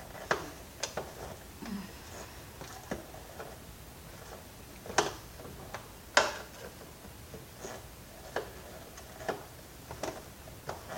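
Screwdriver clicking and scraping against a vacuum cleaner's plastic housing while prying out a screw: scattered irregular clicks and taps, with two louder knocks about five and six seconds in.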